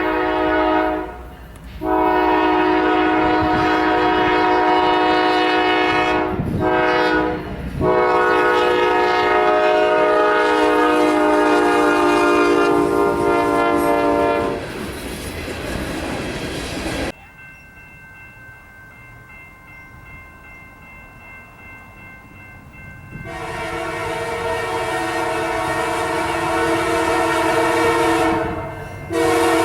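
Locomotive multi-chime air horn sounding a chord in the long, long, short, long pattern used for a grade crossing, followed by train rumble as the locomotive passes. After an abrupt cut, a fainter horn chord holds steady for several seconds. Then a loud horn chord sounds again, with one brief break near the end.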